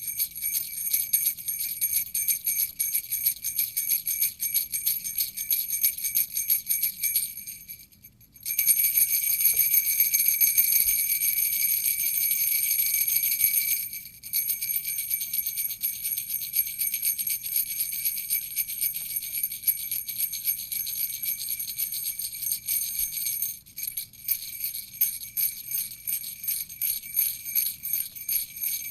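Jingle bells (sleigh bells) shaken in a fast, steady jingle, bright and high-pitched. About eight seconds in they stop briefly, then come back denser and more continuous for several seconds, with short breaks again around fourteen and twenty-four seconds in.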